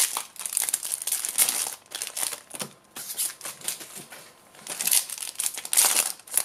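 Foil trading-card booster pack wrappers crinkling and being torn open by hand, in irregular bursts, loudest about a second and a half in and again near the end.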